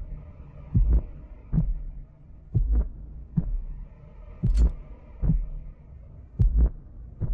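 A slow, heartbeat-like pulse of deep thuds from the trailer's sound effects, beating in pairs about every two seconds over a faint low drone.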